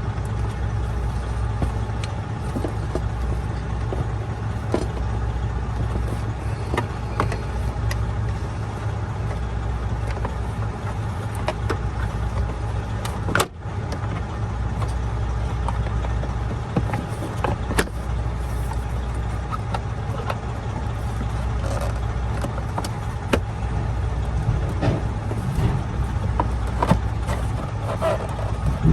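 Steady low hum of an idling truck engine, with scattered clicks and knocks of plastic dash pieces being handled and fitted back into place.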